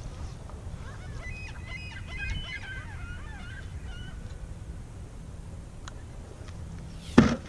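A flock of geese calling, a jumble of short overlapping honks for about three seconds starting about a second in. Near the end comes one sharp, loud knock.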